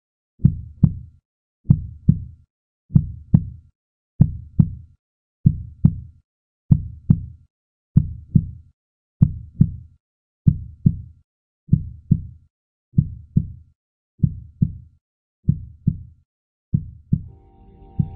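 Heartbeat sound effect: deep lub-dub double thumps, about one pair every second and a quarter, steady and even. Music with sustained tones fades in near the end.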